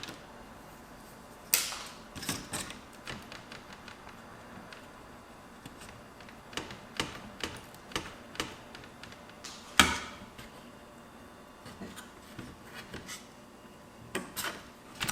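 Scattered light clicks and taps of a laptop's plastic case and internal parts being handled and worked with a screwdriver during disassembly, with two louder knocks about a second and a half in and near ten seconds.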